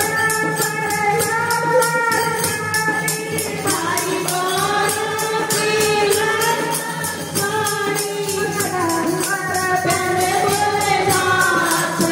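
A woman singing a Haryanvi devotional bhajan into a microphone, in long held phrases over a steady percussion beat.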